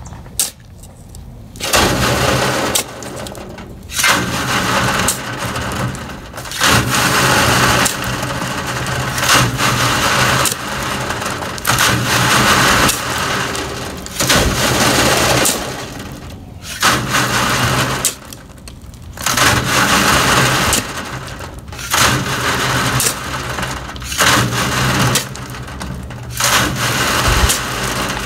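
Shovelfuls of soil and rocks tossed onto a slanted wire-mesh sifting screen, the soil pattering and sliding through the mesh while stones rattle down it. The pours come again and again, a second or two apart, with a couple of short pauses.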